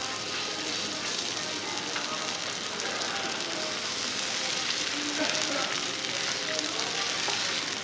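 Kobe beef sirloin steak sizzling steadily on a flat griddle, its seared side just turned up, with small crackles of fat throughout.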